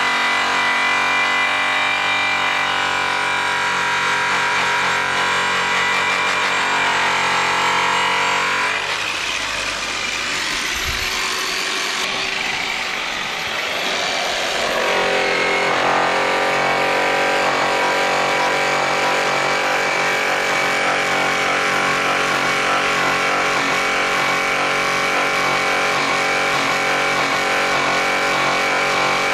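DeWalt variable-speed rotary polisher with an airway cutting buff running against a metal wheel: a steady, high, whining hum during the cutting stage of polishing. About nine seconds in the whine breaks into a rougher, noisier sound for several seconds. It then rises in pitch back to a steady whine.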